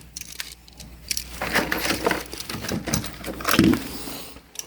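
Hands rummaging through a box of used electrical outlets and parts, the pieces knocking and clattering against each other in irregular clicks.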